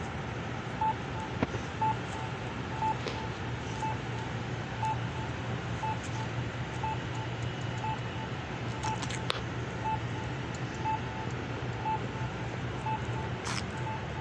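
A short electronic beep repeating about once a second, with fainter beeps in between, over a steady low hum of traffic.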